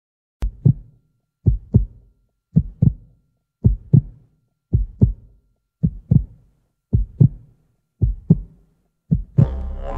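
Heartbeat sound effect: paired low thumps (lub-dub), nine beats a little over a second apart. Droning music with held tones comes in under the last beat near the end.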